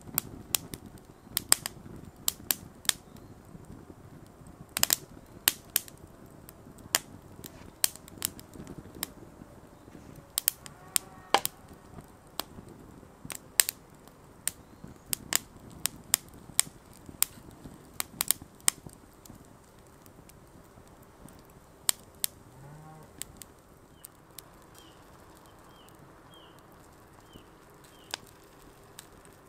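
Wood fire crackling in a small flat-pack steel camping stove, its split kindling catching: irregular sharp pops and snaps, thick for the first two-thirds, then thinning to a few scattered pops.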